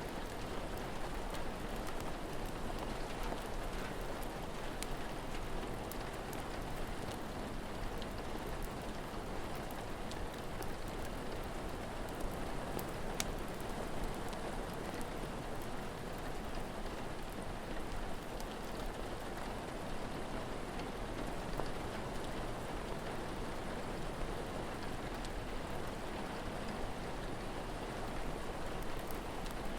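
Steady rain falling, with scattered faint pops and ticks from a crackling wood fire over the hiss.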